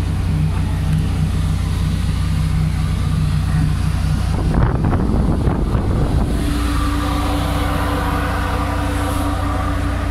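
Steady low drone of the Coral Queen passenger ship's engines, heard on the open deck. Around the middle there is a rougher rushing stretch, and about six seconds in a steady higher hum joins the drone.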